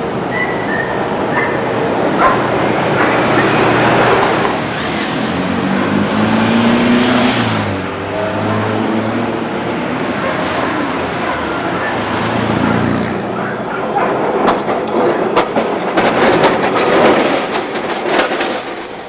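Street traffic noise as an old electric tram approaches and passes close by. Its wheels clatter over the track in a quick run of clicks and knocks for the last few seconds.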